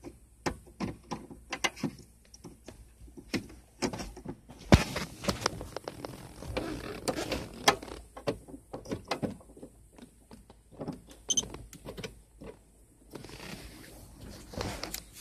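Irregular clicks, knocks and rattling of a diagnostic connector and its cable being handled, unplugged and plugged back into the truck, with one louder knock about five seconds in.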